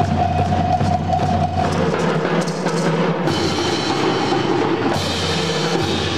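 University show band playing live, held chords over drums with a steady bass drum, the harmony changing a couple of times.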